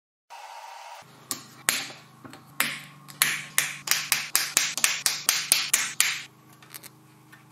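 Plastic cable drag chain on a CNC router, its link cross-bars snapped shut one after another by hand: a run of sharp plastic clicks, speeding up to about three or four a second before stopping.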